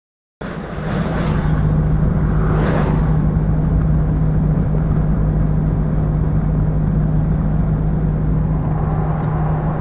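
Cabin road noise from a vehicle driving on a wet highway: a steady low hum over tyre noise. Two brief whooshes come in the first three seconds as oncoming traffic, including a semi truck, passes.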